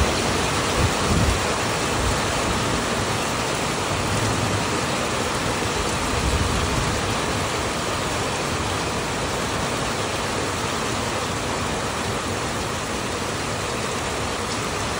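Steady rain falling, an even hiss, with a few brief low thumps in the first couple of seconds.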